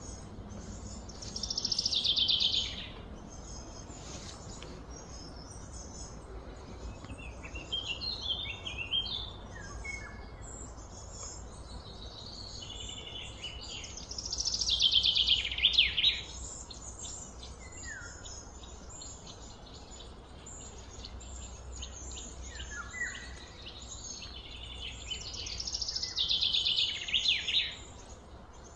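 Birds singing: a high, rapid trilled phrase that falls in pitch comes three times, about a second in, midway and near the end, with short scattered chirps between, over a low steady background hum.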